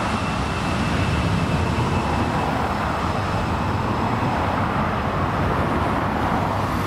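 Cars driving past on the road close by, a steady rush of tyre and engine noise.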